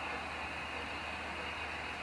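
Steam locomotive standing at a platform with steam hissing steadily.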